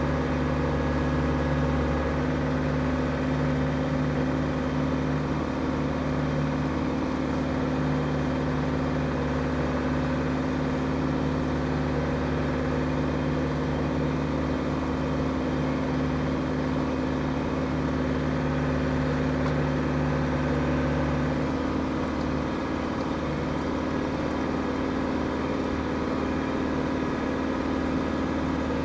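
Land Rover Defender 110's 300Tdi four-cylinder turbodiesel engine running steadily while driving, heard from inside the cab. Its note shifts slightly about twenty seconds in.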